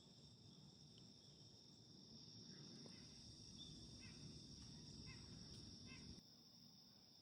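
Faint, steady chorus of crickets and other insects: a continuous high trill. Under it a low rumble stops suddenly about six seconds in.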